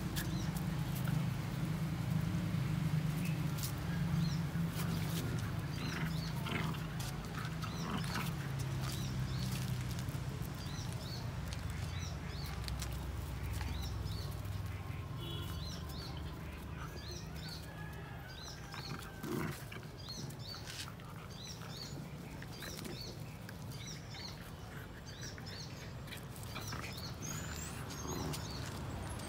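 Young dogs play-fighting, wrestling and biting at each other, with scuffling and a low rumble through the first dozen seconds. Small birds chirp repeatedly in the background from about halfway through.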